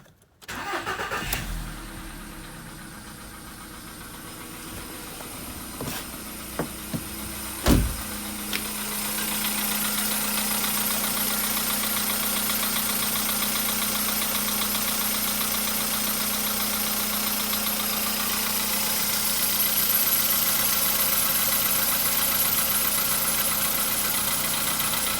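Volkswagen Polo Sedan's 1.6-litre CFNA four-cylinder petrol engine started from cold, catching about eight seconds in, then idling with a strange high whistle that grows stronger near the end. The whistle is new and appears only on a cold start; its cause is not known.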